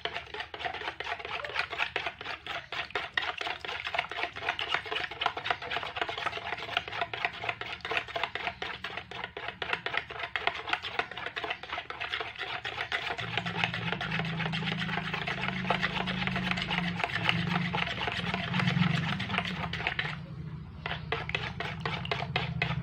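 Metal spoon stirring quickly round a plastic mixing bowl, scraping and clicking on the bowl's sides and bottom as salt is dissolved in hot water, with a brief pause near the end. A low hum underneath grows louder about halfway through.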